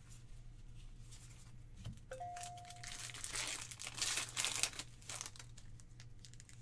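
Foil wrapper of a Pokémon TCG Guardians Rising booster pack crinkling and tearing as it is pulled open by hand, loudest about four to five seconds in. A short two-note chime sounds about two seconds in.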